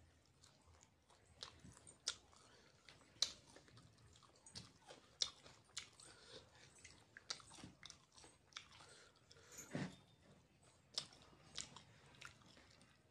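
A person chewing and biting into fried chicken lollipop, eaten by hand, with many short, sharp clicks at irregular intervals.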